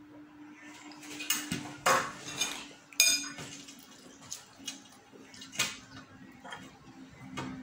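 A plastic fork knocking and scraping against a bowl of instant noodles, several sharp clinks with the loudest about three seconds in, as a child eats and slurps the noodles.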